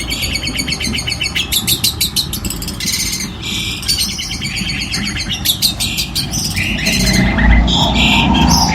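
Long-tailed shrike (cendet) singing a rapid, harsh string of sharp repeated notes and buzzy trills, the quick-fire 'tembakan' song with phrases mimicked from other birds. A low rumble rises under it near the end.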